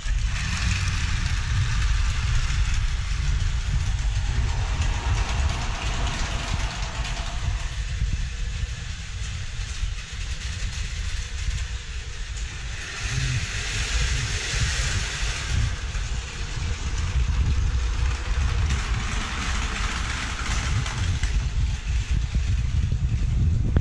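Battery-powered Plarail toy trains running on plastic track. The small motors and wheels give a steady whirring clatter over a low rumble, growing louder a few times.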